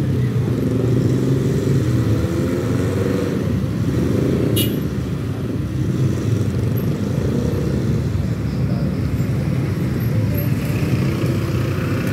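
Motor scooters and small cars crossing in slow, bunched traffic, their engines idling and pulling away in a steady low rumble. A single sharp click comes about four and a half seconds in.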